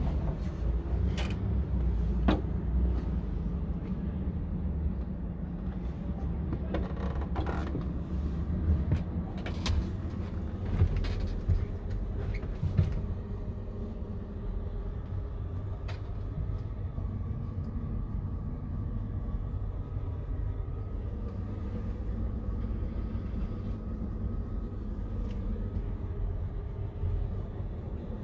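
Scania P truck's diesel engine idling steadily, heard from inside the cab. Scattered clicks and creaks of cab trim and fittings come over it during the first half.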